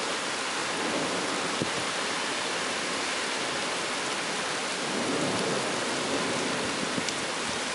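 Heavy rain pouring steadily, an even hiss with a couple of faint ticks of close drops.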